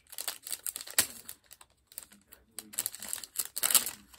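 Paper and thin plastic sheet handled by hand, crinkling and rustling, with sharp clicks and taps in between; the longest, loudest rustle comes in the second half.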